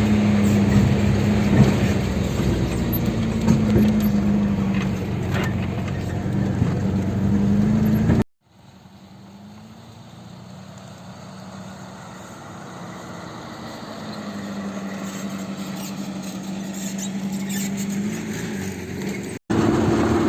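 A van driving, with a steady engine hum over road noise. The sound drops away abruptly about eight seconds in, returns much quieter and slowly builds, then cuts back to full loudness near the end.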